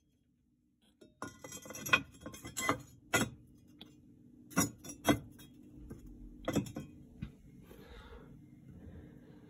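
Cast-iron firebox grate bars being set back into a stove, a series of about seven sharp metallic clinks and knocks, then quieter handling.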